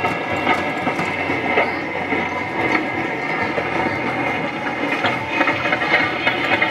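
Coin-operated bulldozer kiddie ride running, its speaker playing electronic sound effects over a dense clatter of many tones and clicks.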